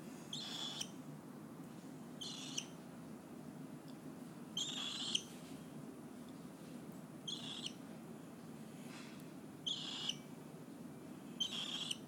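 Lutino cockatiel giving short, harsh chirps, six in all, about one every two seconds, while being stroked.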